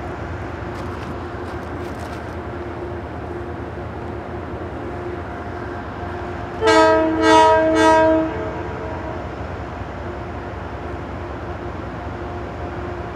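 Train horn sounding three short blasts, each a chord of several tones, about halfway through; three blasts is the signal that the train is about to back up. A steady diesel locomotive drone runs underneath.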